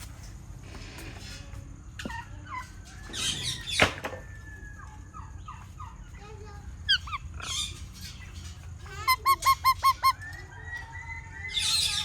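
Parrots calling with chirps and harsh squawks. There is a loud screech about four seconds in, a quick run of about seven repeated calls two-thirds of the way through, and another loud screech near the end.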